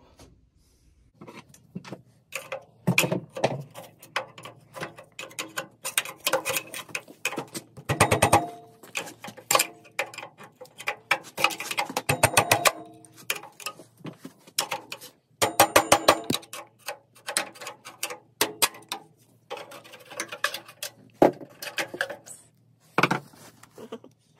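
Hand ratchet clicking in quick runs, with metal tools clinking and knocking in between.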